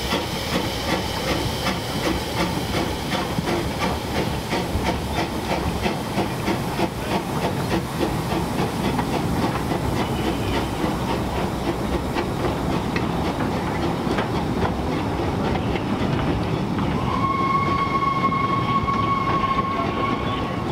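Narrow-gauge steam saddle tank locomotive pulling away with a train: steam hissing and exhaust chuffs about twice a second, with the coaches clattering over the rail joints. About three seconds from the end a steam whistle sounds one long, steady note.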